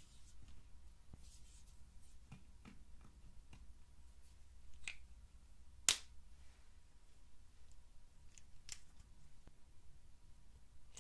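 Soft scraping and tapping of a wooden stick digging pressed eyeshadow out of a small plastic compact, with scattered light clicks. About six seconds in comes one sharp, loud plastic click as the compact's lid snaps shut, and another smaller click follows a few seconds later.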